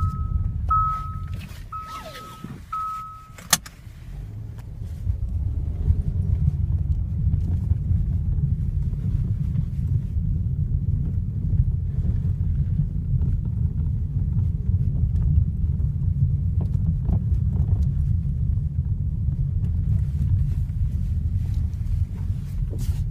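Steady low rumble of a Kia Ceed JD driving over a rough road, heard from inside the car, which may carry the knock from the electric power steering that the owner hears only on gravel or washboard surfaces. In the first few seconds a high warning chime beeps about twice a second, then stops with a sharp click.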